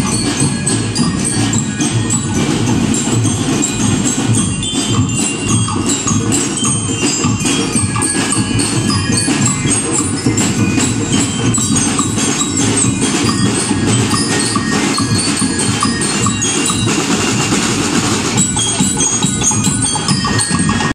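Marching band playing a tune on bell lyres over drums: ringing mallet-struck bell notes above a steady beat of drum strokes.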